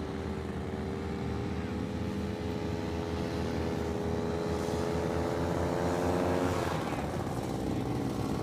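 Paramotor engine and propeller drone from a powered paraglider flying low, running steadily, then falling in pitch about two-thirds of the way through as the pilot comes in to land.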